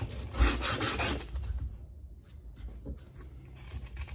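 Hand sanding of a knife blade: sandpaper scraped back and forth along the blade in a quick, even run of strokes for about the first second and a half, then a pause with only faint rubbing.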